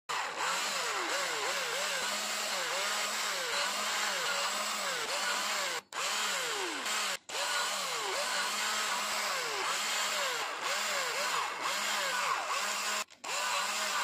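Electric drill boring holes through a thin plastic baby-bottle cap, its motor pitch dipping and recovering about twice a second as the bit bites into the plastic and breaks through. The sound cuts out briefly three times.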